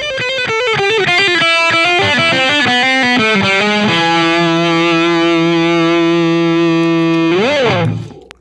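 Background music: a distorted electric guitar plays a quick run of notes, then holds one long chord that swoops up and back down in pitch and dies away near the end.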